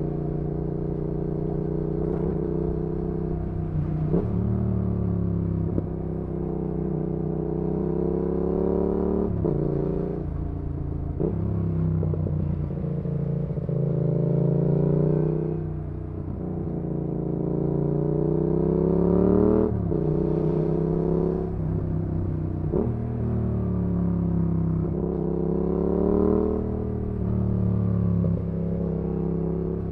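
2019 Yamaha XSR700's parallel-twin engine through an aftermarket IXRACE MK2 exhaust, accelerating hard. The pitch climbs and then drops back sharply at each gear change, several times over, with a short dip in the middle where it eases off before pulling again.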